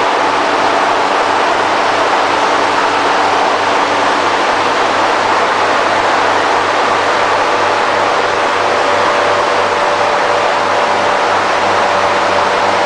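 Hino K13C turbocharged inline-six engine, converted from diesel to run on CNG with spark plugs, running steadily under test with a loud, even sound.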